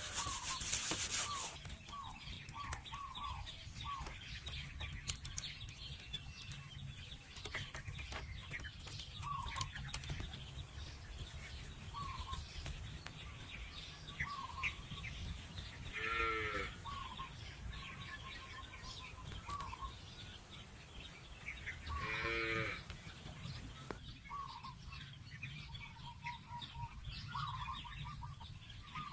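Outdoor farm ambience: small birds chirp repeatedly throughout, and a livestock animal calls loudly twice, each call about a second long, over a steady low rumble.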